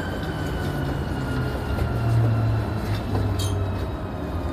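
Running sound heard inside a Keikyu New 1000 series electric train as it slows: the traction motors' whine falls steadily in pitch over the low rumble of the car on the rails.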